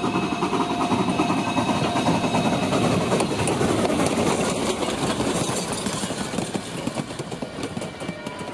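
A narrow-gauge steam locomotive and its train passing close by, with a dense, rapid rattle of wheels and running gear. It is loudest a couple of seconds in and fades toward the end.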